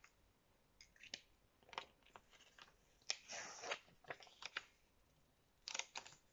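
Faint rustling and crinkling of a small paper slip being handled and folded, in several short bursts, the longest about three seconds in.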